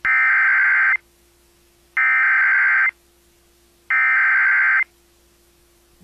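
Emergency Alert System SAME header: three bursts of fast two-pitch data tones, each about a second long, with about a second of silence between them. It is the digital code that opens a tornado warning alert.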